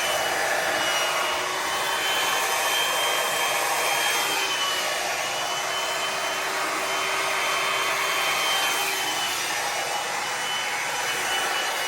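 Hair dryer running steadily at a constant pitch with a thin high whine, blowing wet acrylic paint across a canvas in a Dutch pour.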